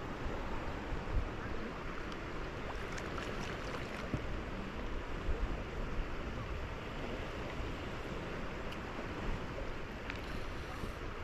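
Wind blowing across the microphone, a steady rushing noise with irregular low buffeting.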